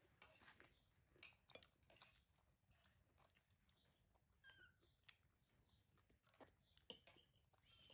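Faint chewing and scattered small clicks of a baby monkey eating, with a couple of brief high squeaks.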